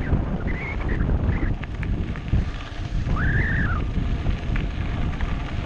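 Wind buffeting a GoPro microphone on a moving mountain bike, with a steady low rumble and small rattling clicks from the bike. A few short high squeals cut through, the longest a rising-then-falling squeal about three seconds in.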